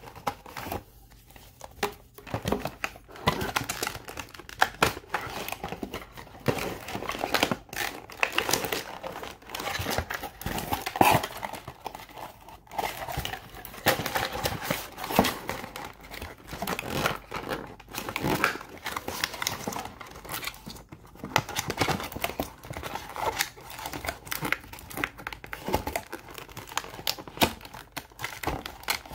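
Hands handling toy packaging: a cardboard insert with wire twist ties, then a clear moulded plastic tray crinkling and clicking, in irregular rustles throughout.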